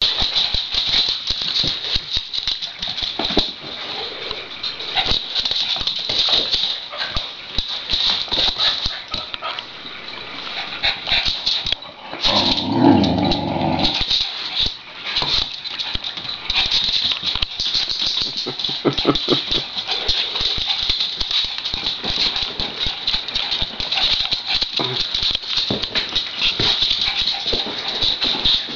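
Small dogs playing together: dog sounds over a busy, unbroken clatter of claws and paws scuffling on a hardwood floor, with a louder, deeper burst about halfway through.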